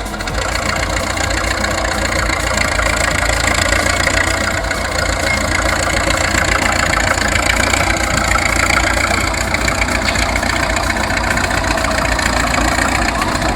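A motor vehicle's engine running steadily at idle, a continuous, loud mechanical noise that sets in at the start.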